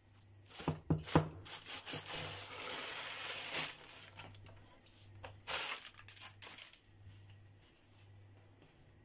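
Handling noises: a few sharp knocks about a second in, then a rustling noise for about a second and a half, with a few more short scrapes later, over a steady low hum.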